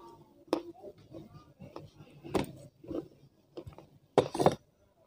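Close-miked chewing of crunchy baked clay, with irregular crisp crunches and a louder crackly burst about four seconds in.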